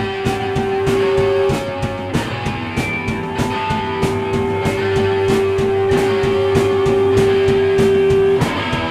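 Live rock band playing loud: distorted electric guitars and drums, with frequent drum hits under a long steady held note that breaks off briefly about a second and a half in and then stops shortly before the end.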